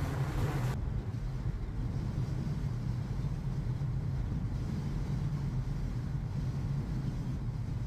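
Steady low road and engine rumble inside a moving Mini's cabin. A broad wind and tyre hiss drops away about a second in, leaving the low rumble.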